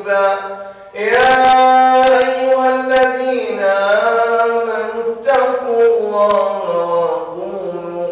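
A man's voice chanting in Arabic, long drawn-out notes that wind up and down, with a brief pause about a second in before a loud held note.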